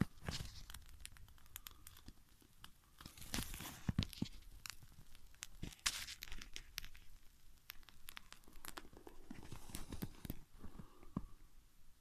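Small fire of thin dry twigs burning on snow, crackling with irregular sharp pops and snaps.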